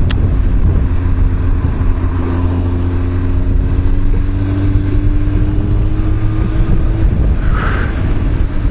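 Motorcycle engine running steadily with wind rush, its note climbing slowly through the middle as the bike rides round a bend. A single sharp knock just after the start as the bike goes over a bump.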